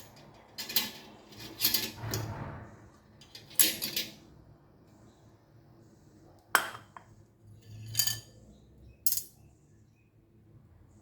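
Dishes and cutlery clinking and clattering: a series of about seven sharp knocks, some coming close together in pairs.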